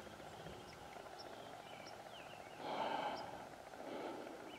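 Faint birdsong, a few short downward-sliding chirps, over quiet outdoor air, with a brief soft rush of breathy noise about two and a half seconds in.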